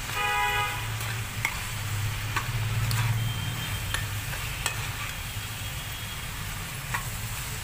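A metal spatula stirring and scraping spiced onion-tomato masala in a frying pan, with a frying sizzle and scattered clicks of the spatula against the pan. A short horn toot sounds from outside at the very start, over a steady low hum.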